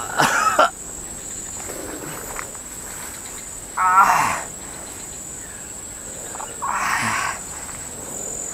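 A man's strained cries, three short ones a few seconds apart, the loudest about four seconds in, over a steady high insect buzz.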